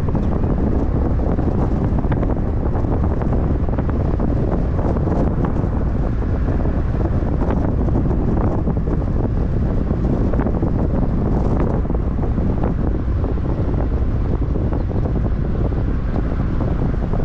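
Steady wind buffeting the microphone of a moving vehicle, over a constant low road rumble, with a few faint ticks.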